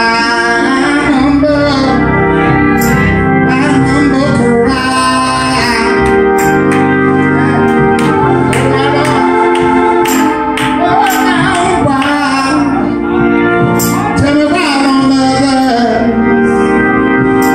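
A man singing a gospel song into a microphone while accompanying himself on an electric organ; the organ's chords are held under a voice that slides between notes.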